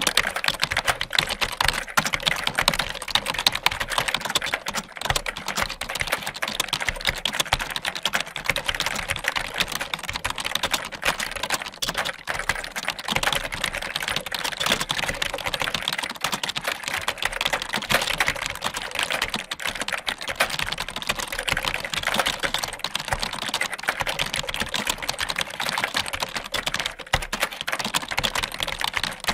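Computer keyboard being typed on quickly and continuously: a dense, unbroken stream of key clicks at a steady pace.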